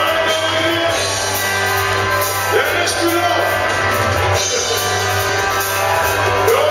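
Live band playing amplified rock-style music, with a man singing into a handheld microphone over electric guitar, keyboard and drum kit.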